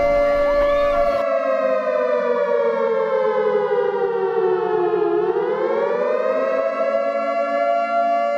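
Civil-defense-style warning siren sounding two tones at once: it holds steady, slowly winds down in pitch over about four seconds, then climbs back up and holds again.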